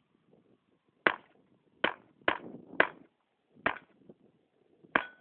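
Six pistol shots fired in an uneven string over about four seconds at steel plate targets. A brief ringing tone follows the last shot, the steel plate being hit.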